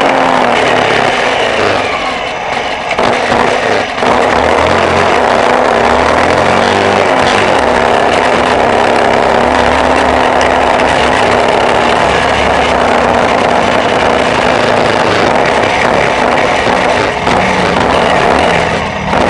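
Off-road vehicle engine running while driving, mostly steady, with short rises in pitch about two and seven seconds in, over heavy road and wind noise.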